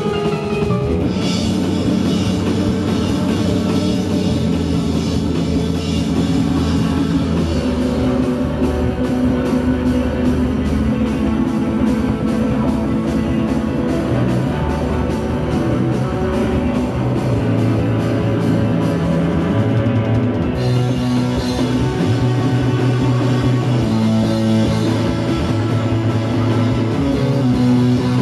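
Live rock band playing loud: electric guitar, bass guitar, drum kit and keyboard.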